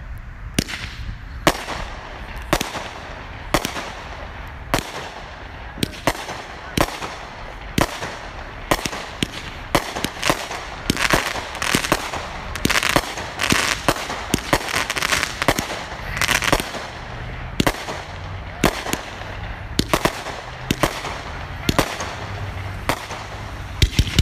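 A consumer fireworks cake firing: sharp shot-and-break reports about once a second. Glittery crackling fills the middle stretch, and a fast volley of several reports a second starts near the end.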